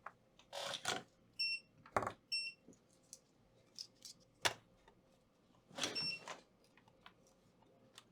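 Three short, high electronic beeps from bench repair equipment, about one and a half, two and a half and six seconds in. Between them come clicks and brief rustles of tools and the board being handled.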